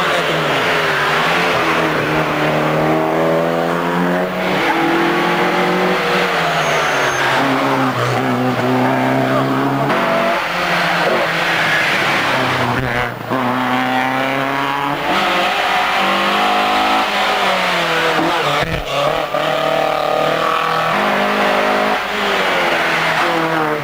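Rally cars' engines revving hard on a hill climb, the pitch climbing through each gear and dropping back at the shifts, again and again, over a hiss of tyre and road noise.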